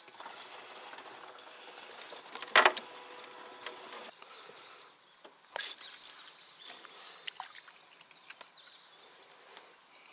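Rustling and knocking of gear being handled in a small boat, with one loud sharp knock about two and a half seconds in and another short loud burst a few seconds later.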